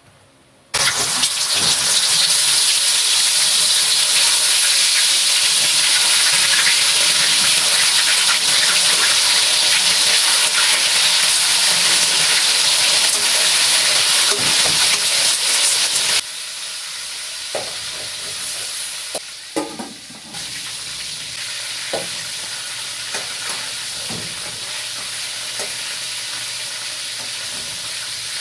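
Chicken pieces frying in hot oil in a metal wok: a loud, steady sizzle that starts abruptly about a second in and drops to a quieter sizzle about halfway through. A few scrapes and knocks of a metal spatula against the wok follow.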